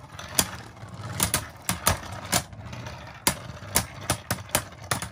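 Two Beyblade Burst spinning tops, King Helios and Slash Valkyrie, whirring steadily as they spin in a plastic stadium. They knock together again and again, giving sharp plastic clacks at irregular intervals.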